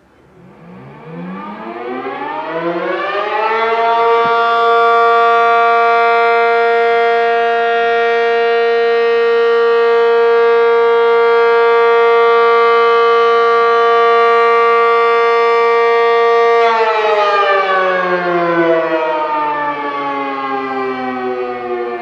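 ACA Cyclone 125 electromechanical warning siren sounding a steady alert test signal. It winds up over the first few seconds, holds one steady tone, and in the last quarter begins to wind down, its pitch falling.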